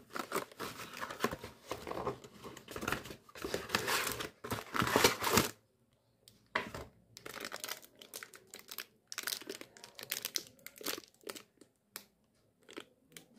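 Plastic packaging crinkling and tearing as a tape package is opened and a plastic-wrapped tape roll is handled. Dense rustling for the first five and a half seconds, then a short break, then lighter, scattered crinkles.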